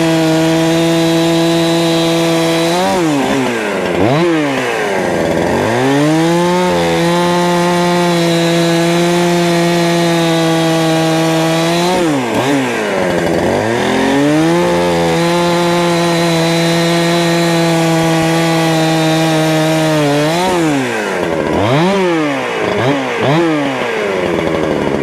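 A 71cc Holzfforma G372 two-stroke chainsaw cuts firewood at full throttle, holding a steady high pitch while in the cut. Between cuts the pitch falls off and revs back up: once about three seconds in, again near the middle, and with several quick revs near the end.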